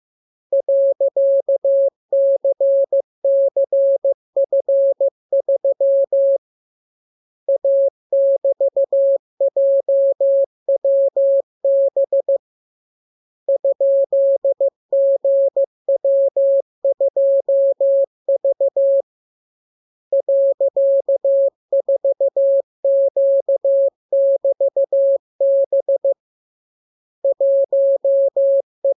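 Morse code sent as a single steady beep keyed on and off into dots and dashes, in groups of characters with a pause of about a second every six seconds or so: a practice radiogram of random letters, figures and signs for learning to copy by ear.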